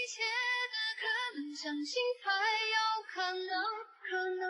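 Background song: a high voice singing a slow melody in sustained, gliding phrases with short breaks between them.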